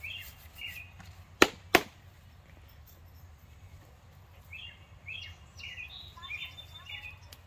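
Two sharp clicks or knocks about a third of a second apart, with small birds chirping in the background.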